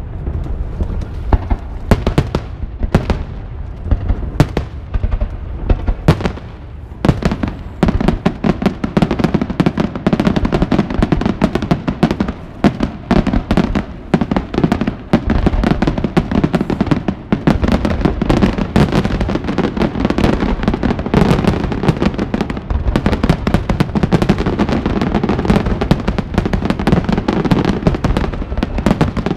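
Aerial fireworks bursting in a string of sharp bangs that come faster about seven seconds in and merge into a dense, continuous barrage.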